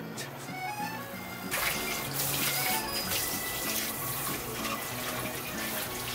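Soft background music, joined about a second and a half in by a steady hiss of a ssamjang mixture sizzling as it cooks in a pot.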